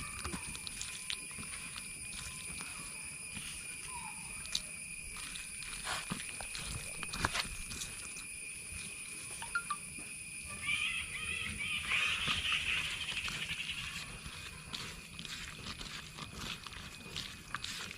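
Outdoor ambience with steady high-pitched droning tones, scattered clicks and knocks, and a burst of animal calls from about eleven to fourteen seconds in.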